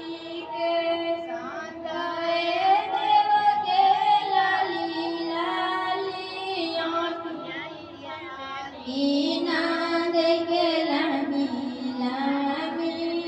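A high woman's voice singing a song over music, in long held, wavering notes, with a short break about eight seconds in before the next phrase.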